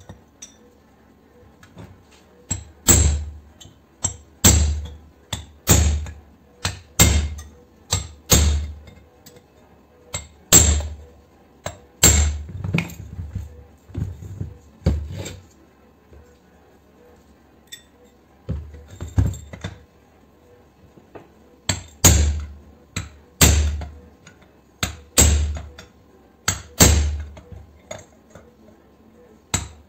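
Repeated heavy metal blows as a steel chisel bar is driven down into an electric motor's stator and finned aluminium housing to break the copper windings and core out. The knocks are loud, each with a deep thud and a bright ring, in runs of about one every second and a half, with two short pauses past the middle.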